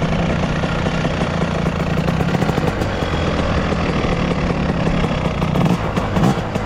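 Paratrike's Polini Thor 200 single-cylinder two-stroke engine running steadily at an even pitch.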